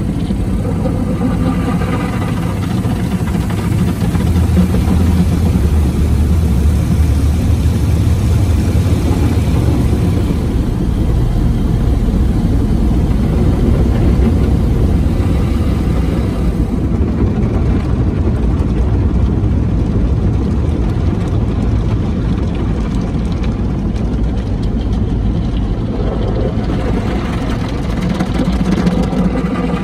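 Automatic tunnel car wash heard from inside the car's cabin: water spray and wash brushes beating on the windshield and body, a loud steady rumble with a hiss over it. The hiss thins out past the middle and picks up again near the end.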